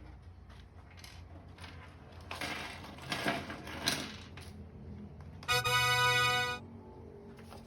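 Plastic toy bricks being handled and pressed together, faint clicks and rustles. About two-thirds of the way through, a single steady musical note sounds for about a second, louder than the handling.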